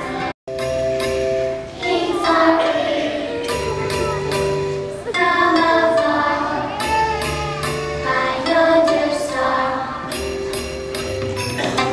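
A group of young children singing a song together over musical accompaniment with low held notes. The sound cuts out for an instant just after the start.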